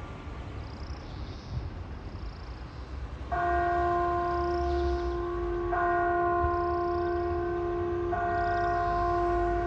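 Clock tower bell striking twelve: three strokes about two and a half seconds apart, the first about a third of the way in, each ringing on until the next, over a low background rumble.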